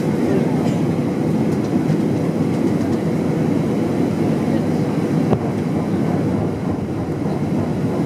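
Steady low rumble of airflow and engine noise inside the cabin of an Airbus A320 on descent for landing, with a single light knock a little past five seconds in.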